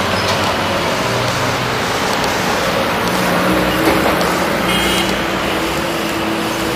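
City street traffic: a steady mix of cars, buses and trucks running along a busy avenue, with low engine hum underneath.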